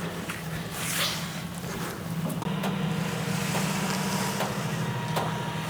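A large engine running steadily, picking up a little about two seconds in, with a faint steady whine above it.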